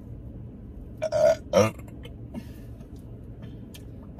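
A person burping: two quick burps close together, about a second in.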